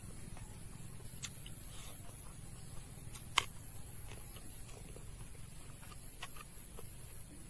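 Close-up eating sounds: wet chewing and mouth smacks on a mouthful of rice and smoked pork, mixed with soft clicks from fingers working rice on the plate. One sharper click comes about a third of the way in.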